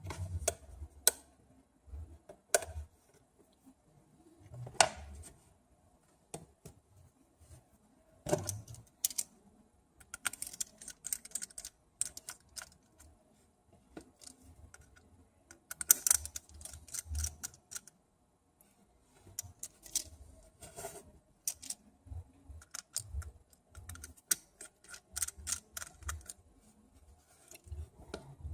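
Small irregular clicks and taps of hand tools, screws and parts against an iPhone 6 Plus during disassembly, some in quick runs of ticking, with a few short pauses.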